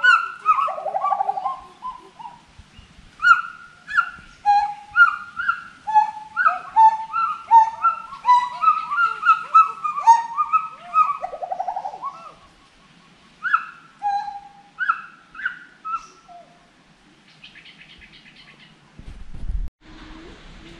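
Gibbons calling: a rapid run of loud, swooping hoots, about two a second, that thins out and stops after about sixteen seconds. Near the end comes a brief low rumble.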